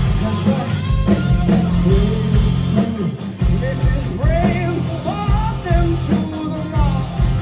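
Rock band playing live, with electric guitar, bass guitar and drums under a singer's bending vocal line.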